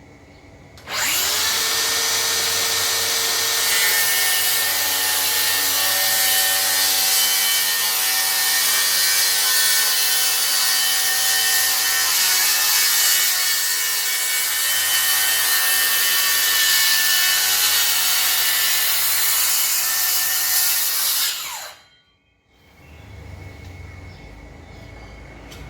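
DeWalt DCS578 cordless circular saw spinning up about a second in and cutting through wood with a steady whine for about twenty seconds, then switched off and spinning down near the end.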